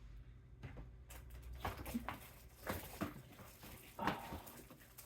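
Small packaged items being handled, with a handful of short rustles and taps in the middle of the stretch.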